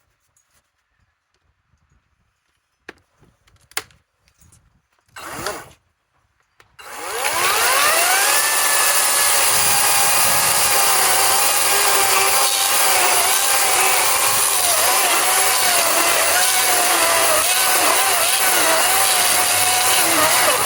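Ego 18-inch cordless electric chainsaw: a few clicks and handling knocks, then about seven seconds in the motor spins up with a rising whine and runs steadily at full speed. Its pitch dips and wavers repeatedly under load as the chain cuts, most likely through wood.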